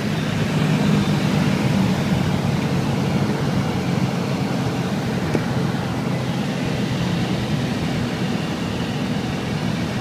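Piper light aircraft's engine and propeller running with a steady drone.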